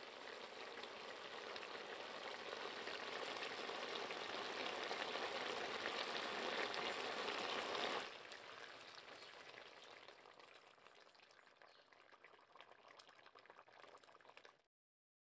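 Eel, squash, potato and tomato sizzling as they fry in an iron wok, the sizzle steadily growing louder. About eight seconds in it drops to a quieter crackling sizzle as water is poured into the pan, then cuts off near the end.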